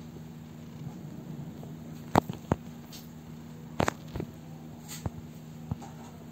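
Footsteps on a hard bathroom floor: a handful of sharp, irregular taps over a steady low hum.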